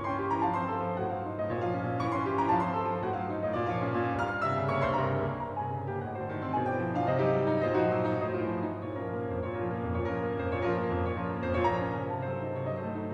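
Instrumental background music led by a keyboard instrument, with many overlapping sustained notes.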